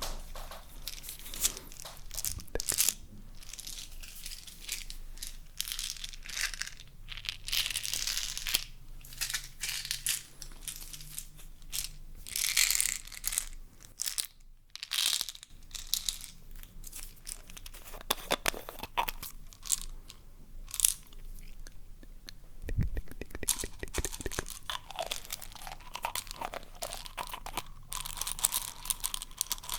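Close-miked ASMR trigger sounds: hands crinkling and crunching a dry, papery material in quick scratchy strokes, with a short pause about halfway through.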